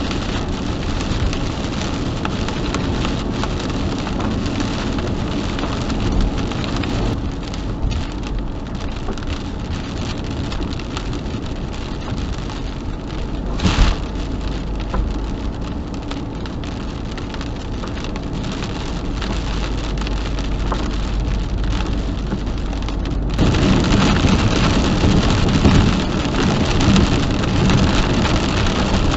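Heavy rain pattering steadily, with one brief louder burst about 14 seconds in. The downpour gets heavier about 23 seconds in.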